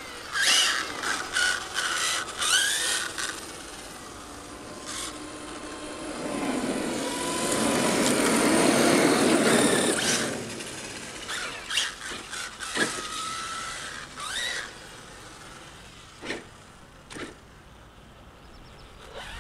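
Radio-controlled cars running on asphalt: short bursts of motor and tyre squeal in the first few seconds, then a rushing sound that swells to a peak about nine seconds in and falls away as a red RC monster truck passes close, followed by scattered short bursts as the cars drive off.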